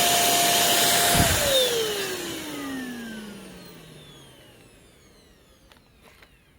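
Deerma DX810 handheld vacuum cleaner running, switched off with a click about a second in; the motor's whine falls steadily in pitch and fades as it spins down over about three seconds. A few faint clicks near the end.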